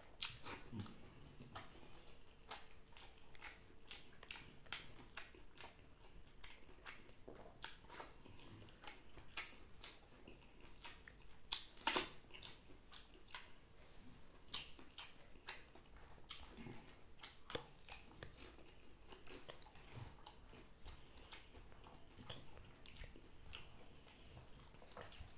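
Close-up eating sounds from rice eaten by hand off a banana leaf: a steady run of wet chewing and lip-smacking clicks, with the soft squish of fingers mixing rice. The loudest smack comes about halfway through, as a mouthful goes in.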